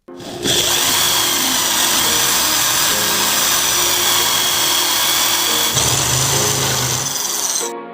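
Electric power tool running on wood, a steady high whine over grinding noise, starting about half a second in and cutting off shortly before the end.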